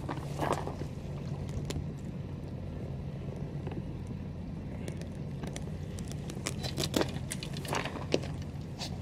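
Seaside ambience at a rocky breakwater: a steady low rumble with scattered light clicks and taps, the loudest about seven seconds in.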